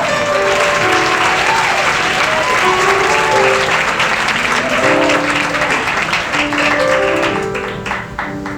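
Audience applauding over the opening notes of a live instrumental accompaniment; the applause dies away near the end, leaving the accompaniment.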